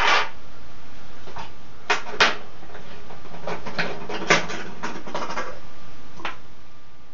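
Silver rounds tipped out of a plastic coin tube onto a wooden desk: a string of sharp clicks and clinks, the loudest about two and four seconds in, a quick cluster around five seconds, and one more near the end.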